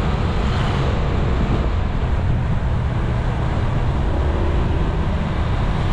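Honda ADV160 scooter's single-cylinder engine running at a steady cruise, a constant low drone under a rush of wind and road noise.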